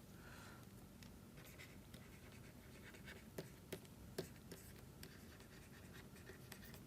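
Faint pen writing: light scratching strokes, with a few short soft ticks around the middle.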